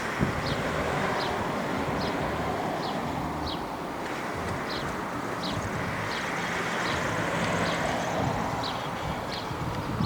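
Steady rushing noise of a jet airliner's engines that swells and eases slowly. Short high chirps repeat about once a second over it.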